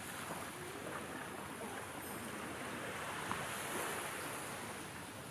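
Steady, even wash of sea surf breaking on a beach.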